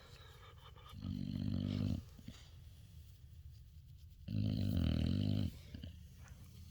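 Dog snoring: two long, low snores about three seconds apart, each lasting about a second.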